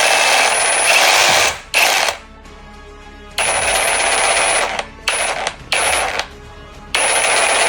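INGCO CJSLI1008 20V cordless jigsaw running in short bursts, starting and stopping abruptly about six times, with a steady high whine over the noise of the blade. Background music is heard in the gaps.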